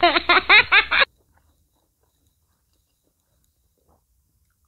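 An edited-in laughing sound effect: a quick run of rhythmic giggling that cuts off suddenly about a second in.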